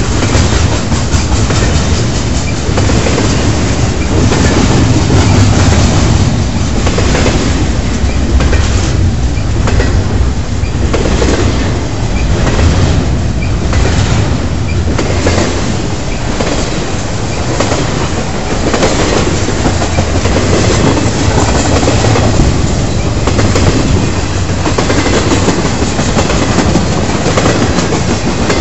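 Double-stack intermodal well cars of a freight train rolling past loudly: steel wheels clicking over the rail joints in a steady, repeating clickety-clack over a continuous rolling rumble.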